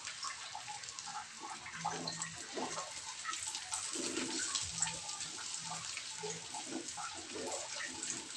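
Hot oil sizzling and crackling in a wok as the food is stir-fried until fragrant, with a spatula scraping and stirring against the pan.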